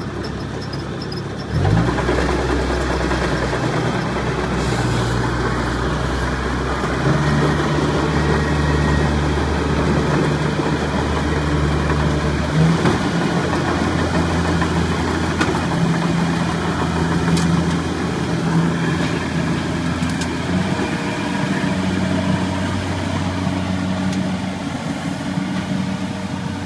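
Engine of a tracked rice combine harvester running. It revs up sharply about two seconds in, then its speed steps up and down several times.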